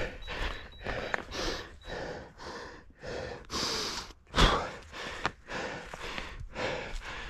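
A runner breathing hard, fast gasping breaths about two a second, close to a head-mounted camera's microphone, with one longer, louder breath a little past halfway.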